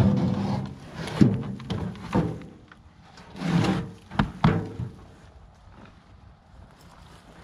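A plastic bucket of leafy compost material knocked and scraped against a wheelbarrow, with hollow thunks and a ringing knock at the start. A rustling rush of the loose material shifts in the middle, followed by two more sharp knocks.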